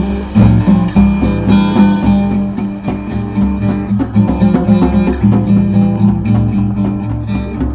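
Instrumental music: a guitar being plucked and strummed over steady low notes, with no voice.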